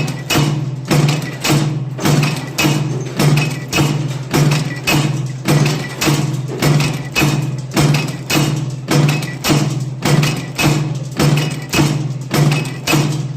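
Cold heading machine forging bolts, running steadily with a regular stroke of just under two a second. Each stroke is a sharp knock over a constant low machine hum.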